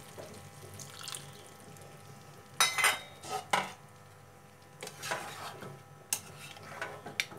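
Kitchen clatter of utensils on a pan, then a plastic spatula stirring and scraping through mutton curry and freshly added water in a non-stick pan. There are a few sharp knocks, loudest a little under halfway through.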